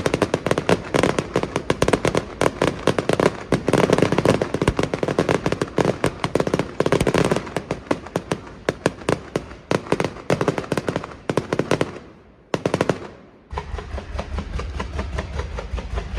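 A rapid, dense string of firecracker bangs crackling without pause, thinning out about twelve seconds in. Near the end a lower rumbling sound with quicker, softer pops takes over.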